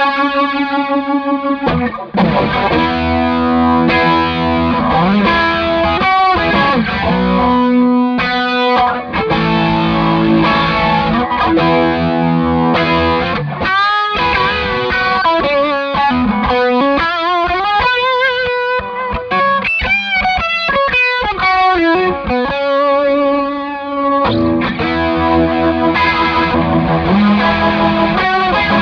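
Electric guitar played through a Hammond Leslie G rotary-speaker simulator pedal with overdrive added, a continuous run of chords and single-note lines. The rotary effect gives the notes a swirling warble.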